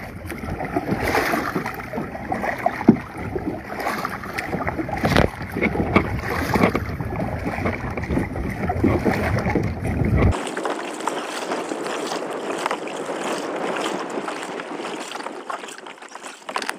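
Kayak paddle blades dipping and splashing in the water in an uneven rhythm of strokes, over a rushing wash with wind rumbling on the microphone. About ten seconds in the sound changes abruptly and turns thinner, the low rumble gone.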